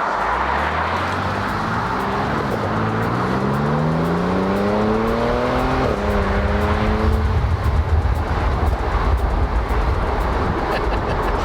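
2012 Audi S5 Cabriolet's supercharged V6 accelerating hard, heard from inside the car. The engine's pitch climbs, drops at an upshift about two and a half seconds in, climbs again, and drops at a second shift about six seconds in. It then gives way to a steady low road and wind rumble.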